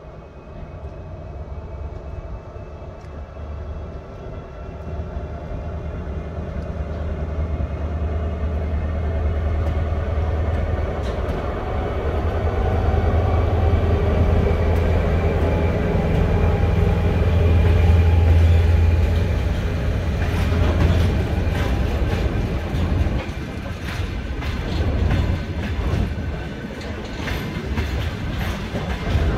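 Siemens ER20CF diesel-electric locomotive departing with a freight train of tank wagons. Its diesel engine's low, steady drone with a few held tones grows louder as it approaches and passes close by. From about two-thirds of the way in, the rumble and clicking of the tank wagons' wheels on the rails take over.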